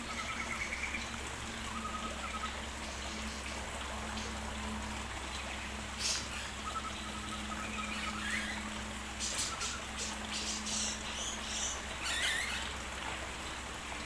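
Water trickling in a small aviary pond over a steady low hum, with faint short bird chirps now and then and a few brief sharp sounds in the middle.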